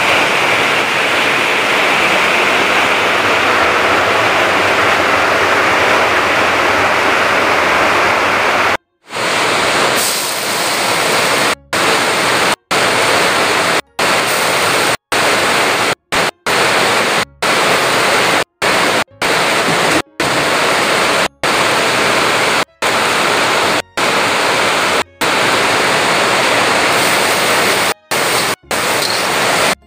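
Hot cooking oil sizzling loudly in a wok as pounded chili and shallot paste fries in it. From about nine seconds in, the sizzle drops out briefly many times.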